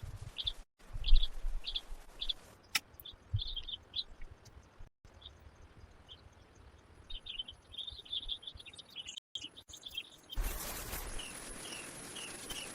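Birds chirping: short high calls repeated in clusters over a faint hiss, with a few low knocks early on. Near the end the hiss grows louder and the chirps come evenly spaced, a little over two a second.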